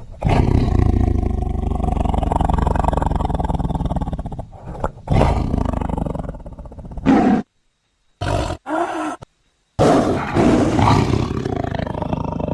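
Big-cat roars edited into a creature sound effect built from tiger recordings. A long roar starts right away and a second one comes about five seconds in. Around the middle, short clipped roars are broken by sudden dead silences, and roaring resumes about ten seconds in.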